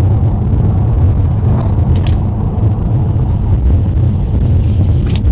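Steady low rumble of a car driving at road speed, heard from inside the cabin: engine and tyre noise.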